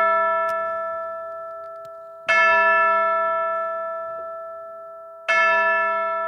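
A bell ringing slowly: a stroke from just before is fading, then it is struck again about two seconds in and again near the end, each stroke ringing out and dying away over three seconds.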